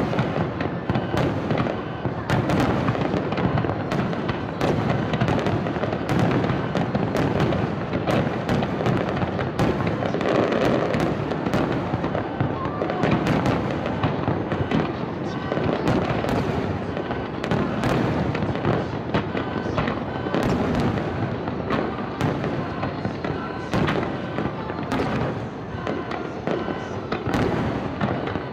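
Aerial firework shells bursting in a dense, continuous barrage, sharp bangs and crackles several times a second.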